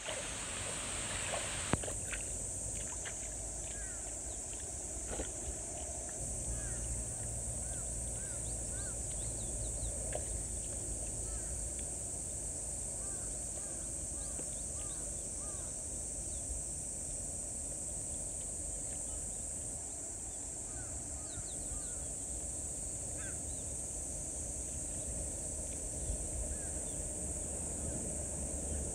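Outdoor ambience: birds chirping in short repeated calls over a steady high-pitched drone and a low rumble of wind.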